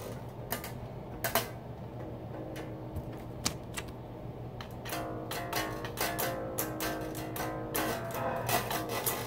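Strings of an unplugged electric bass plucked by hand, heard acoustically without an amplifier. A few sharp clicks of handling come first, and ringing notes follow from about halfway.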